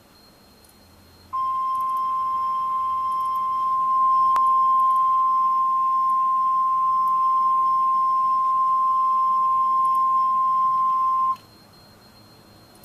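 NOAA Weather Radio warning alarm tone, a 1050 Hz beep held steady for about ten seconds, starting about a second in and cutting off sharply, with faint radio hiss before and after. The tone signals that an urgent warning follows, here a tornado warning.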